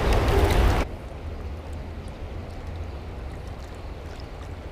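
High water rushing through a nearly wide-open dam, a steady hiss with a low rumble. A louder rush with heavy rumble cuts off abruptly under a second in, and the flow continues more quietly after that.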